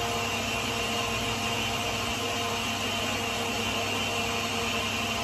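Countertop blender motor running steadily, blending a smoothie of frozen fruit.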